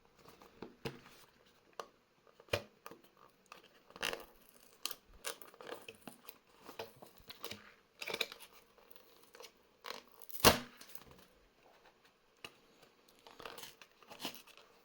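Fingers picking and working at a small product box to get it open: a scattered run of short scratches, rustles and clicks, with one sharper click about ten seconds in.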